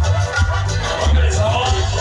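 Loud Latin dance music played through a sound system, with a heavy bass beat, shakers and a gliding melody line.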